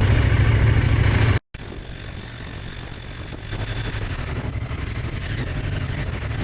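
Loud, steady low drone of aircraft engine noise from an air show, cut off abruptly about a second and a half in. A quieter steady rumble and hiss follows and slowly grows louder.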